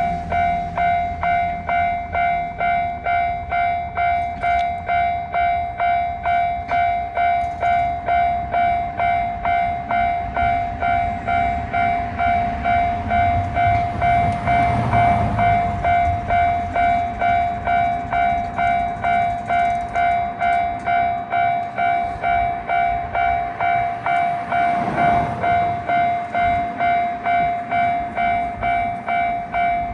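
Japanese railway level-crossing warning bell ringing steadily, about two strokes a second, while a train rumbles past.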